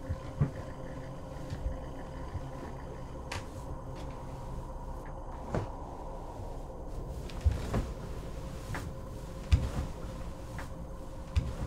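Scattered soft knocks and thumps from someone handling a motionless man's clothing and body on a bed, over a steady low hum with a faint held tone; the loudest thump comes about nine and a half seconds in.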